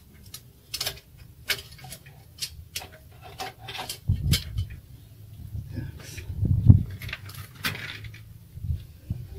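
Irregular metallic clicks and clinks from hands working on a bicycle, with heavy low thumps of the camera being handled from about four seconds in.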